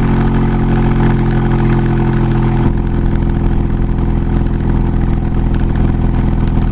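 Truck engine and road noise heard from inside the cab while driving: a steady engine drone whose tone shifts slightly a little under three seconds in. The driver says the truck isn't running well.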